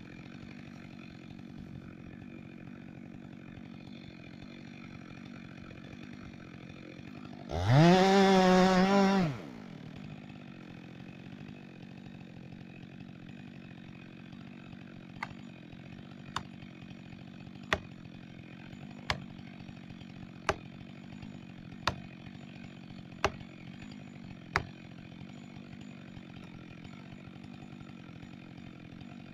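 Chainsaw idling, then revved to full throttle for about two seconds and let back down to idle. Later come eight sharp knocks, evenly spaced about a second and a half apart, over the steady idle.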